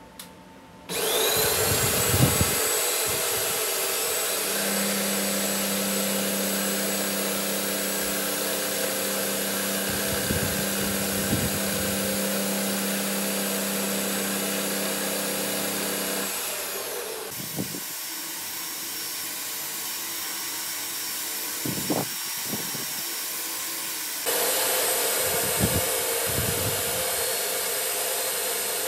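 Metal lathe running, its chuck spinning with a steady machine whir that starts about a second in. The sound drops a little past the middle and steps back up near the end, with a few short scraping clicks of metal cutting.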